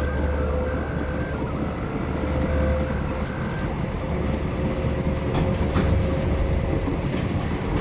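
Synthesized sci-fi sound effect: a deep steady rumble under held electronic tones that change pitch in steps, with a few clicks about five to six seconds in.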